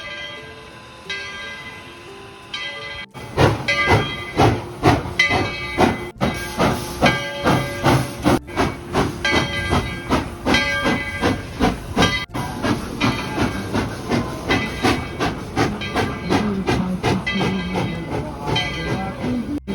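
Music with a steady beat of about two pulses a second and whistle-like pitched notes, opening with a few separate bell-like tones. The sound cuts out briefly several times.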